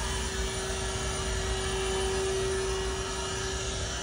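Steady machine hum with one constant tone, over a low rumble.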